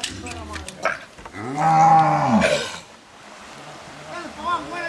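Cattle mooing: one loud, long moo about a second and a half in, rising and falling in pitch, with fainter, shorter calls near the end and a few sharp knocks in the first second.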